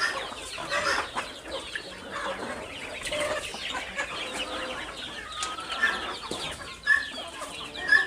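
A flock of free-range native (beldi) chickens clucking and calling over one another, many short overlapping calls, with a few sharper short calls near the end.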